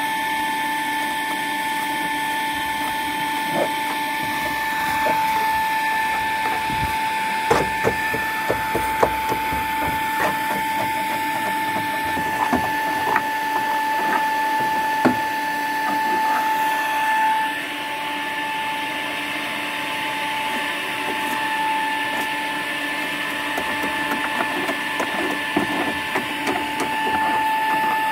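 Sharp irregular knocks, taps and scrapes of hand tools chipping and prying rotten wood out of a fiberglass boat transom, busiest in the first half. Under them runs a steady motor whine from an electric fan.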